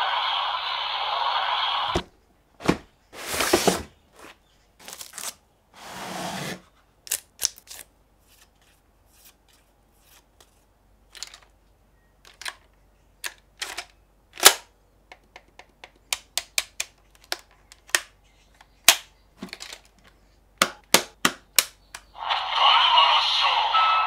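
Sharp plastic clicks, snaps and short rustles from unboxing and handling the DX Valvarusher toy sword. A continuous louder sound runs for the first two seconds and starts again about two seconds before the end.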